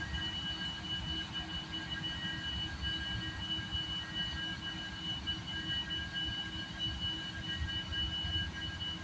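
Union Pacific diesel-electric locomotives running: a low, uneven engine rumble with steady high-pitched whining tones laid over it.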